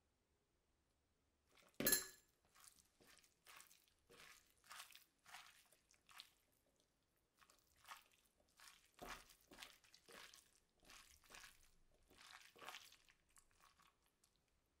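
Hands tossing and squeezing spring cabbage leaves in soybean-paste seasoning in a glass bowl: soft, irregular rustling strokes, about one or two a second. A single sharp knock about two seconds in, louder than the rest.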